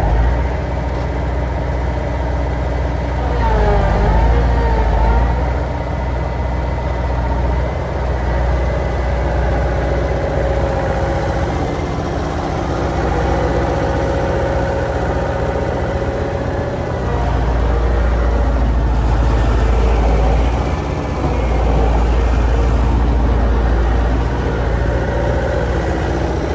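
Bobcat skid steer engine running, its revs rising and falling a few times, with louder, deeper stretches in the second half.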